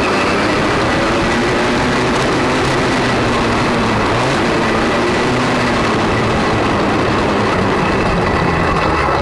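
Motocross bike engine running under throttle while riding on a dirt track, heard from an on-board camera; the engine note rises and falls as the throttle is worked.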